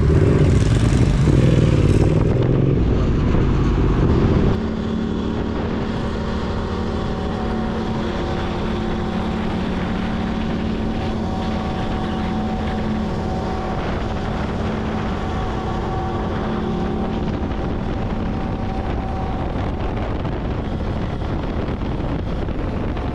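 Yamaha Ténéré 700 motorcycle's parallel-twin engine running, with wind on the microphone at first; about four and a half seconds in the sound drops abruptly to a quieter, steady engine note.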